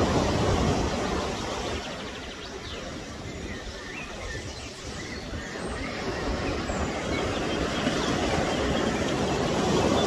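Pacific surf breaking and washing up a sandy beach, a steady rush that is loudest at the start, eases in the middle and swells again near the end as the next waves come in.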